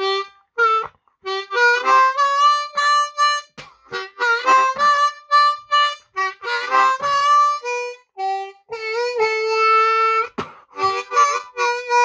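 Low D diatonic harmonica playing a quick tune in short, detached notes, with one longer held note about nine seconds in. Some notes bleed into neighbouring holes, by the player's own account.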